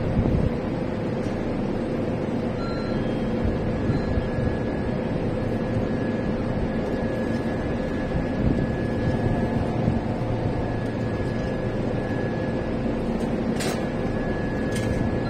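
Railway station platform ambience: a steady mechanical hum with a few short, faint beeps, and two sharp clicks about a second apart near the end.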